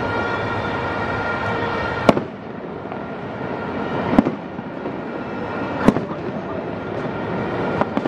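Fireworks display: four sharp bangs of shells bursting, roughly every two seconds, over a continuous din of further fireworks.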